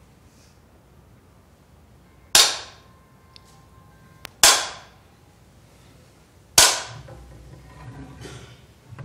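Three sharp wooden knocks about two seconds apart, each with a short ringing tail: a Seon master's wooden staff (jujangja) struck on the dharma seat, the ritual opening of a Buddhist dharma talk. A low shuffling follows the third knock.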